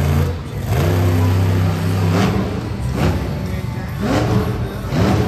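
Monster truck engine revving in repeated blips, its pitch climbing and dropping several times, with louder surges about two seconds in and again near the end.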